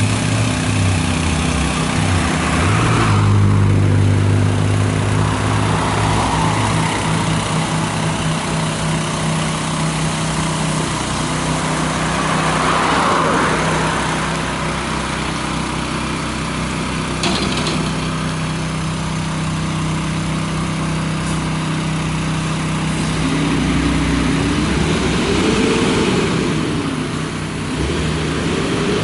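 Heavy truck engine running steadily, the water tanker working along the verge, with a rushing noise swelling and fading several times. Near the end an engine note rises and falls twice.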